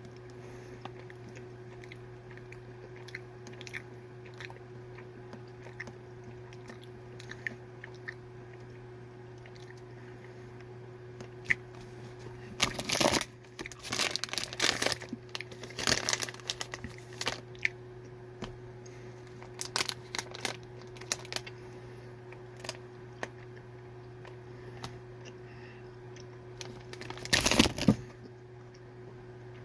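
Plastic fruit snack pouches being crinkled and torn open in several loud bursts of rustling, the loudest near the end, with scattered small crackles between them. A steady low hum runs underneath.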